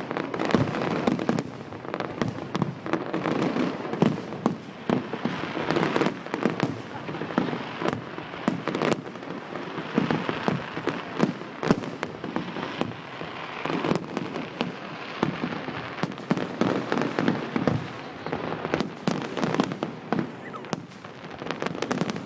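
Fireworks display: a dense, unbroken barrage of bangs and crackling from aerial shells, many reports a second with no gaps.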